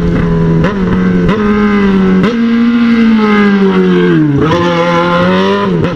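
Yamaha XJ6 inline-four motorcycle engine with a 4-into-1 straight-pipe exhaust, running under way as the bike slows in traffic. The engine note steps up at three quick shifts in the first couple of seconds, sinks as the revs fall, then picks up again about four and a half seconds in.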